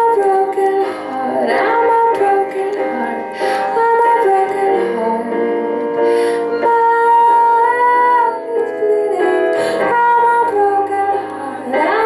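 Live pop music: a woman singing held, gliding notes into a microphone over sustained instrumental backing.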